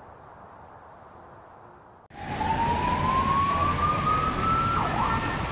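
Siren of a police car winding up, one tone rising slowly in pitch over city traffic noise, which starts suddenly about two seconds in. Before it, only a faint low hiss.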